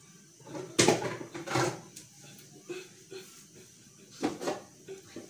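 Kitchenware being handled: a few short knocks and clatters, two loud ones about a second in and another near the end.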